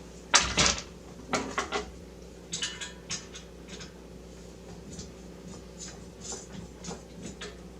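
Hard clicks and knocks of rig frame parts being handled and fitted together while the lower GPU rail is assembled. There is a cluster of sharp, louder knocks in the first three seconds, then lighter, scattered ticks.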